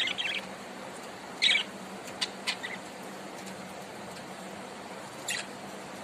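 Budgerigars giving short, scattered chirps: a quick cluster at the start, one about a second and a half in, a few brief ones around two and a half seconds, and one more near the end, over a steady hiss.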